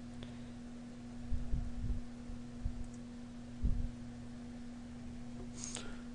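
Steady low hum with a fainter tone above it, broken by a few dull low thumps about a second and a half in and again near four seconds.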